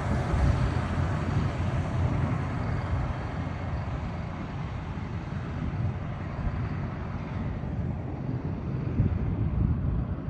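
Wind buffeting the phone's microphone outdoors: an uneven low rumble under a steady hiss.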